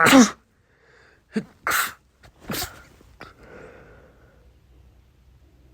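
A person sneezing. A loud, voiced sneeze ends right at the start, then three short, sharp sneeze bursts follow over the next couple of seconds, trailing off into faint breathing.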